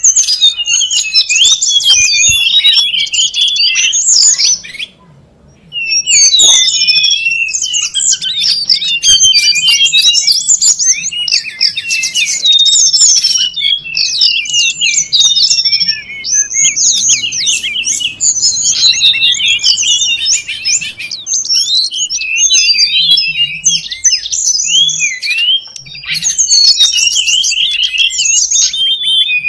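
Tledekan gunung lure and master song: a noisy, rapid run of squeaky, high chirps and twitters, broken by a short pause about five seconds in.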